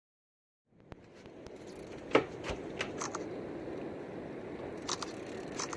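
Silence, then a steady rushing noise fades in, with a few sharp clicks and knocks, the loudest about two seconds in.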